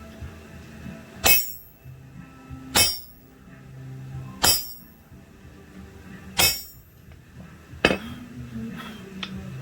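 Hammer blows on steel at an anvil: five sharp, ringing strikes, about one and a half seconds apart.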